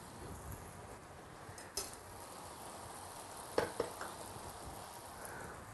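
Food sizzling faintly in a stainless steel pan of glutinous peppers and sauced fried eggs. A metal ladle clinks against the pan once a little under two seconds in and twice more past the middle.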